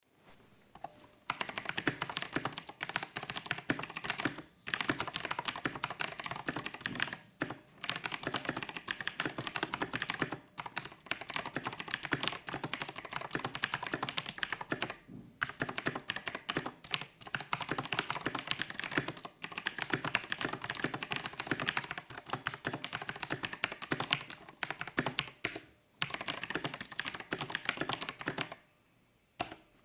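Fast, continuous typing on an Edra EK387 Pro mechanical keyboard with Outemu Blue clicky switches, each keystroke a sharp click, broken by brief pauses every few seconds.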